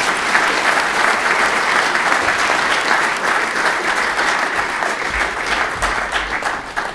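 An audience applauding, a dense patter of many hands clapping that fades near the end.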